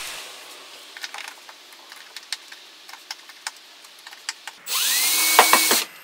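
A screwdriver hand-tightens flathead wood screws through an iron pipe floor flange, making light scattered clicks and scrapes. About three-quarters of the way in, a power drill runs for about a second, its motor rising in pitch and then holding steady.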